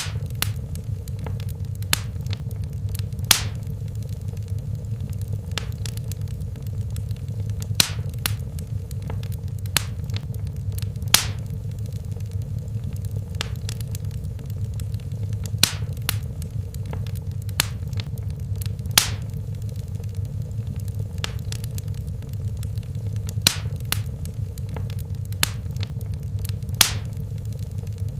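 Wood fire burning in a fireplace: a steady low rumble of flames with sharp crackles and pops at irregular intervals, about one every second or so.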